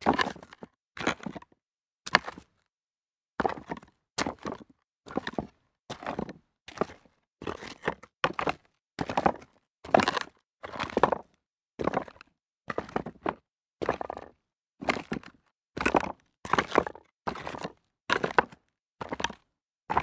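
Footsteps walking on rocks, at a steady pace of about two steps a second, with a short break in the steps about two seconds in.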